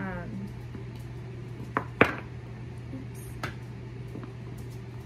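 Hard, sugar-coated candied fruit (tanghulu) dropped into a small plastic cup, knocking against it: two sharp clicks about two seconds in, the second the louder, and a lighter one about a second and a half later.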